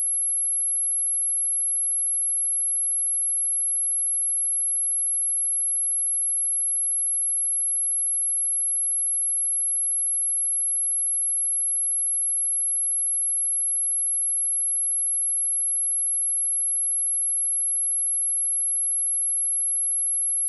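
A pure 11087 Hz sine test tone: a single steady, very high-pitched whistle that holds unchanged.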